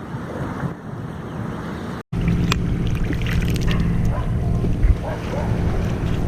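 Wind noise on the microphone, then after an abrupt cut a steady engine drone with a low, even hum and a few light clicks.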